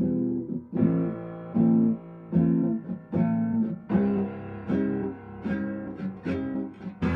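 Slowed-down pop song intro: plucked guitar chords repeating at an even pace, about one a second, with a fuller backing and bass coming in at the very end.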